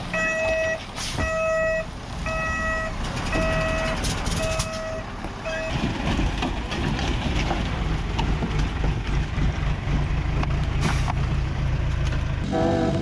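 Bulldozer's reversing alarm beeping steadily, a little under twice a second, for about the first six seconds as it backs up, over its diesel engine. The beeping then stops and the engine runs on under load, louder and steady; music comes in at the very end.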